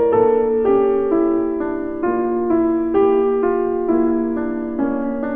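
Background piano music: slow, sustained chords, a new one struck about every second and left to ring.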